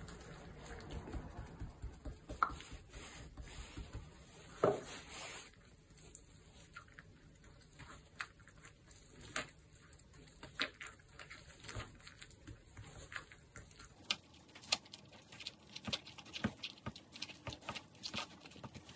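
Metal fork stirring thick instant curry rice in a paper cup, working the curry roux into the rice: a run of small soft clicks and scrapes, with one louder knock about five seconds in.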